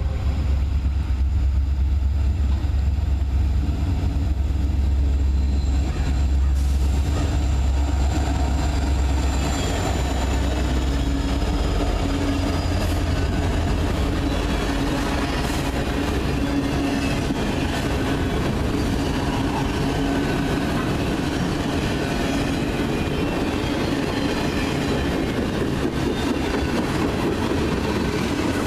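Freight train passing close by: a heavy, deep diesel locomotive rumble for the first ten seconds or so, easing as the engines go by, then a long run of autorack and covered hopper cars rolling past with steady wheel clatter.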